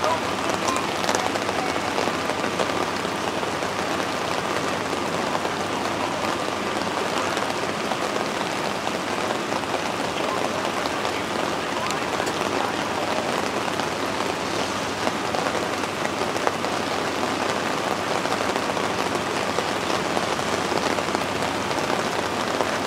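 Heavy rain falling, with many small drop ticks close by, over the steady rush of Turner Falls running in flood.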